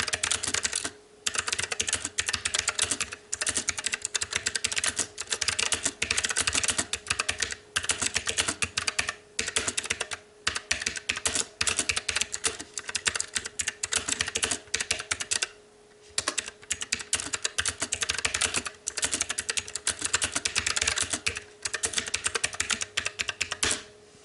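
Fast typing on a STOGA retro-typewriter-style mechanical keyboard with blue clicky switches: rapid, crisp key clicks in runs broken by short pauses, stopping just before the end.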